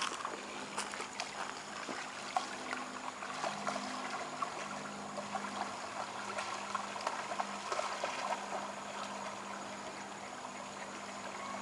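Creek water running and trickling, with many small splashes and drips, over a faint low hum that comes and goes.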